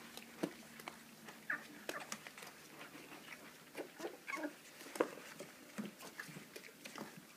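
A litter of kuvasz puppies eating raw food together: faint, irregular wet chewing, smacking and lapping clicks, with a couple of brief squeaks about a second and a half in and again past four seconds.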